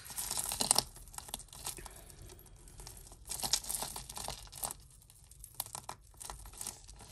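Tangled jewellery being worked apart by hand: irregular rustling with many small clicks of chains and beads, busiest in the first second and again around the middle.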